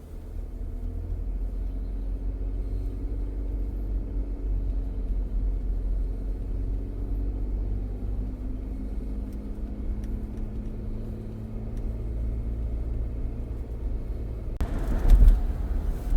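Steady low rumble of a car's tyres and engine heard from inside the cabin while driving, with a brief louder rush of noise near the end.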